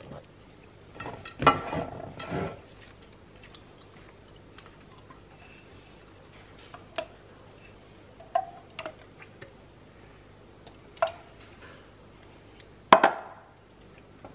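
Kitchen dishes and utensils clinking and knocking now and then as food is handled, with a clatter about a second and a half in and a sharp knock near the end.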